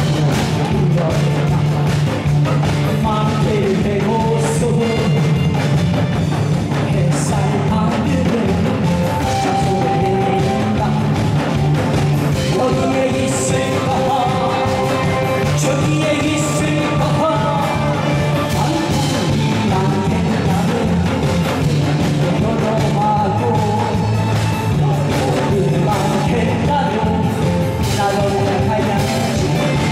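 A man singing a song over loud music with a steady drum beat.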